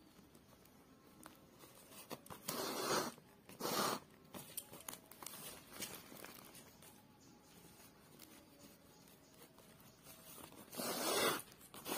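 Yarn pulled through a woven plastic sack by an embroidery needle: three short scratchy swishes, two close together about three seconds in and one near the end, with faint rustling and small clicks between.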